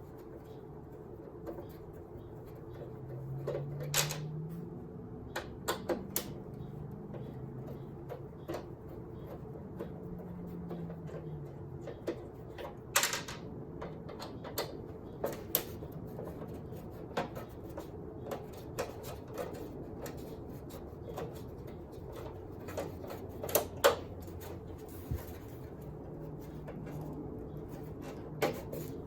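Scattered sharp clicks and knocks of hand tools against the plastic and metal inside a CRT television as its speaker is worked loose, over a steady low hum.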